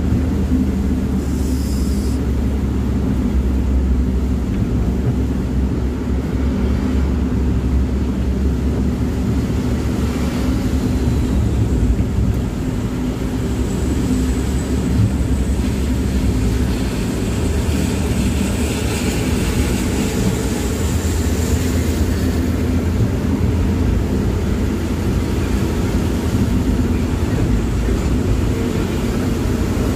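Steady low drone of a vehicle's engine and road noise heard from inside the cabin on a rain-soaked highway. A hiss of rain and tyre spray on the wet road grows louder for several seconds in the middle.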